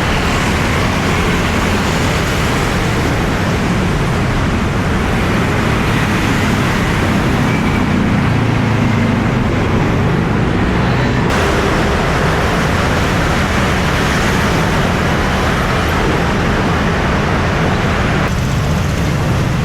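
Steady road traffic noise from passing vehicles, with abrupt changes about 11 and 18 seconds in.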